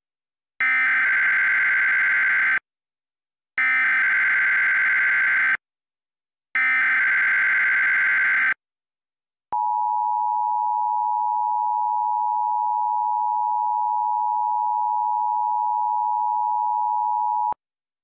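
Emergency Alert System SAME header: three bursts of warbling digital data tones, each about two seconds long with a second's gap between them. These are followed by the EAS attention signal, a steady two-tone beep held for about eight seconds that cuts off sharply, announcing a test tornado warning.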